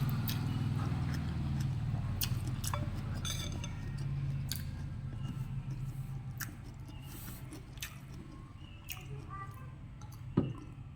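A person chewing num banh chok rice noodles and vegetables close to the microphone: wet mouth smacks and clicks, over a low steady hum. One sharper click stands out near the end.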